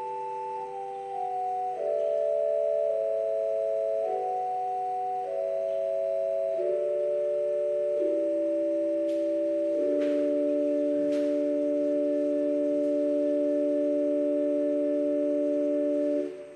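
Organ playing slow held chords, the notes changing every second or two, then a final chord held for about six seconds that stops shortly before the end.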